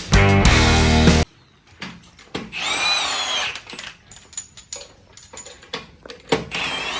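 Music cuts off about a second in. A power tool's motor then whirs briefly, its pitch rising and then falling, amid scattered clicks, and whirs again near the end.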